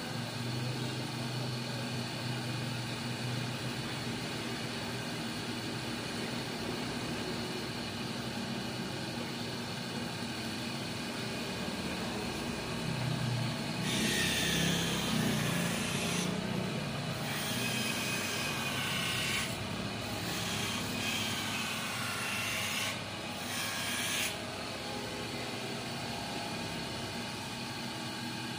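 Optician's hand lens edger motor running steadily. From about halfway through, an eyeglass lens is pressed against its grinding wheel in four grinding passes of a few seconds each, the last one short.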